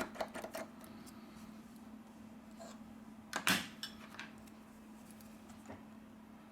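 Faint clicks and light metallic taps of small repair tools working on a phone's internals, with one louder click about three and a half seconds in, over a steady faint hum.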